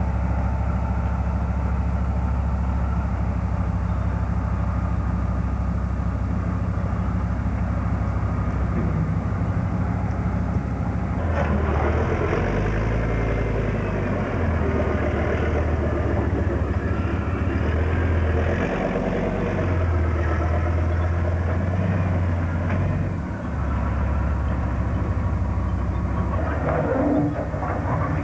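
Tracked armoured recovery vehicle driving: its heavy engine runs steadily, then changes speed several times from about a third of the way in, with the tracks clattering.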